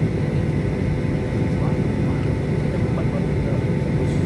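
Passenger airliner's engines running steadily: a loud, even rumble with a few steady whining tones over it.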